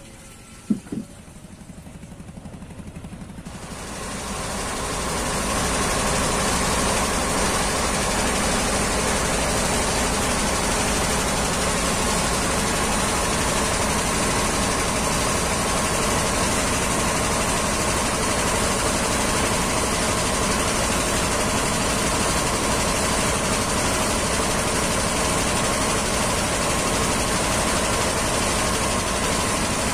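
Wooden cargo boat's inboard engine running steadily under way at sea, a loud, even drone. The first few seconds are quieter, with one brief knock about a second in, before the engine noise rises about four seconds in.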